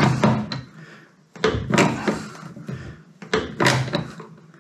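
Hand pop-rivet gun squeezed in repeated strokes, a sharp clack of the handles and jaws about once a second, as a long, thick rivet is pulled through to fix a headlamp bowl. Each stroke takes a lot of effort.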